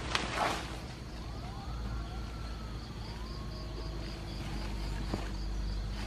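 Insects chirping in a steady pulse, about two to three pulses a second, with a brief rustle of dry grass and leaves at the start as they are pushed aside. Faint, drawn-out whistles rise and fall in the background, and a low hum comes in about two seconds in.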